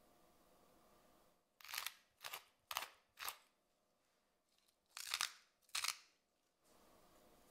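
Hand-twisted spice mills grinding over a bowl: black pepper in four short grinding bursts, then a wooden salt mill in two more about a second later.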